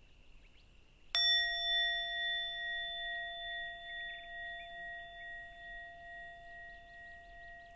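Small handheld bowl bell, a Zen mindfulness bell, struck once about a second in and left ringing: a clear, several-toned ring that fades slowly with a gentle pulsing wobble.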